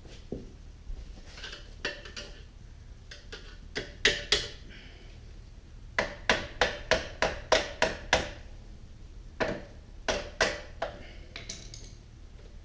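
Hand tools working on a motorcycle's frame fittings: scattered sharp metallic taps and clicks, then a quick run of about nine evenly spaced ringing strikes around the middle, with a few more after.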